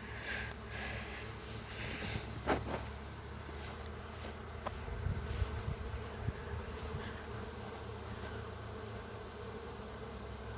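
Steady buzzing hum of a honey bee swarm in flight, thousands of bees circling in the air. A short knock sounds about two and a half seconds in.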